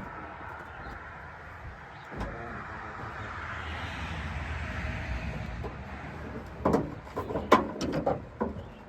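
A vehicle engine running, swelling to its loudest about four seconds in and then fading, followed by a quick string of sharp knocks and clatter near the end.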